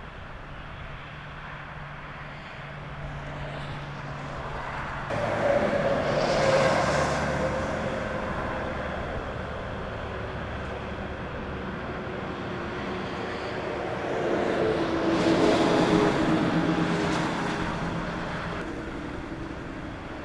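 Freeway traffic going by: vehicles swell up and fade past, loudest about five seconds in and again around fifteen seconds, over a steady low hum.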